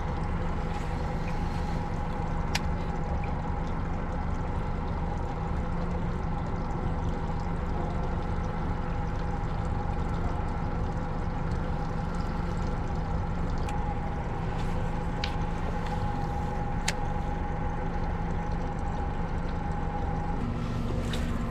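Boat motor running steadily, a constant hum with a high whine over a low rumble, with a few sharp clicks over it.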